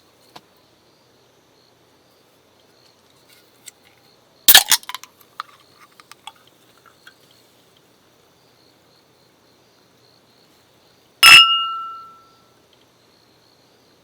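Hard objects clattering against glass about four and a half seconds in, followed by a few light taps, then a single clear glass clink that rings and dies away over about a second.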